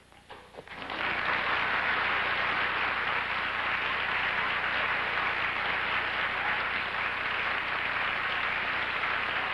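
Studio audience applauding, starting about a second in and holding steady.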